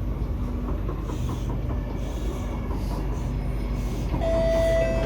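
Kawasaki–Nippon Sharyo C751B train heard from inside a car while running on the track: a steady low rumble. About four seconds in, a steady high-pitched whine with several higher tones sets in and rises a little in loudness.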